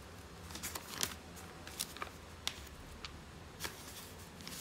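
Printed paper sheets of a manual being handled and leafed through by hand: soft rustling with several short, crisp paper crackles scattered through.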